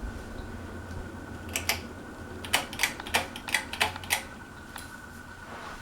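Hampton Bay Carousel ceiling fan running with a steady low hum. In the middle comes a quick irregular run of about ten sharp clicks.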